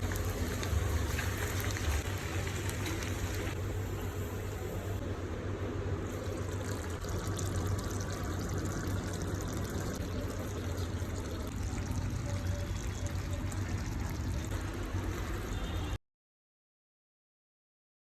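Chicken aloo gravy bubbling as it simmers in the pan, a steady crackling hiss with a low hum under it. The sound cuts off abruptly near the end.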